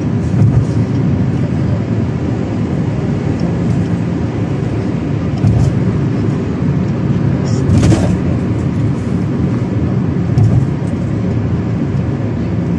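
Steady road and engine noise inside a moving car's cabin at highway speed, a continuous low rumble. A brief knock is heard about eight seconds in.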